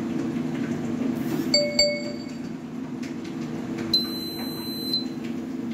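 Steady low hum of the running carbon-cleaning machine, with two quick ringing pings about one and a half seconds in. About four seconds in, the controller's buzzer gives a high beep lasting about a second, its signal that the work cycle has finished.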